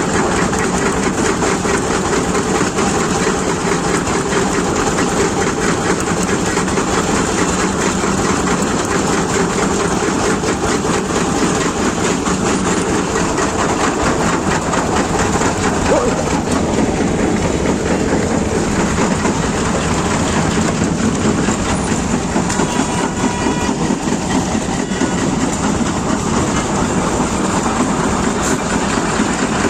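Heavy road-construction machinery running steadily, its engine drone mixed with a fast continuous mechanical clatter.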